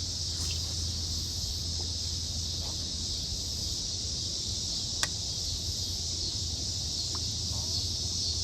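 Steady high-pitched chorus of insects buzzing, with a low steady hum beneath and a single sharp click about five seconds in.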